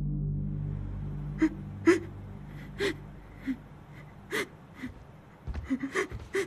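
A man crying quietly: a string of short sobbing gasps and sniffs, coming faster near the end. Soft background music fades out at the start.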